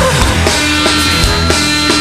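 Instrumental passage of a rock song between sung lines: a steady drum beat over bass and held guitar tones, with no vocals.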